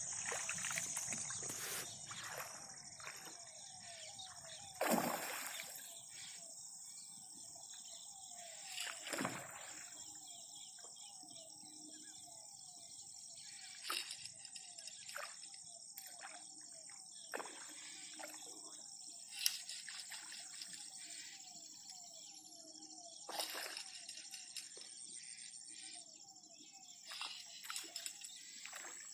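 Lakeside outdoor ambience: a steady high insect drone with a faint chirping call repeating a few times a second, broken by a few sudden splashes of water, the loudest about five seconds in.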